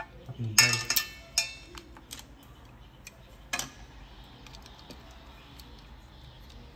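Tableware clinking: a cluster of sharp clinks with brief ringing about half a second in, another clink soon after and one more about three and a half seconds in, then only faint light ticks.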